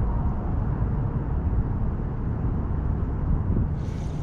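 Wind buffeting the microphone: a steady low rumble that rises and falls in strength.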